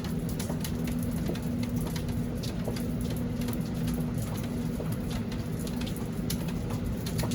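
Steady rain with many individual drops and drips ticking, over a low droning tone that breaks off briefly every couple of seconds.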